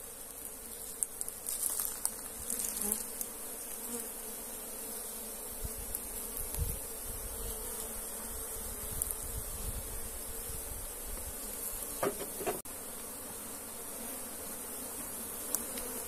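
A honeybee colony buzzing steadily, many bees at once, around its hollow-log hive just after its honeycomb has been cut out. A couple of short knocks about twelve seconds in.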